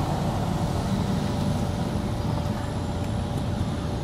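Steady low rumble of a car heard from inside its cabin, with a faint steady whine.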